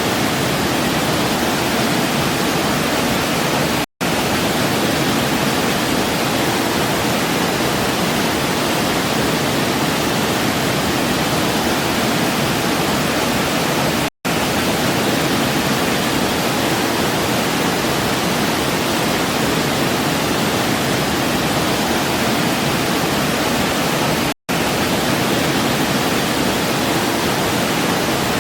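Waterfall: a steady, even rush of falling water, cut by three instant drop-outs to silence about ten seconds apart.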